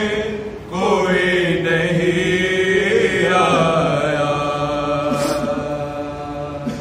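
A man's voice chanting an unaccompanied Urdu marsiya (Shia lament). After a short break about half a second in, he draws out one long wavering note that fades toward the end.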